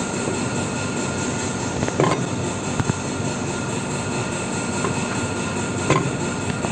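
Offline soldering machine running with a steady mechanical hum made up of several steady tones. Sharp clicks come about two seconds in, just before three seconds, and near six seconds.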